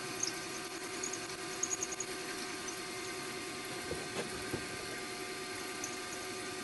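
Milling machine spindle running steadily while a 5 mm twist drill feeds down through a carburettor body, with a few faint high ticks in the first couple of seconds.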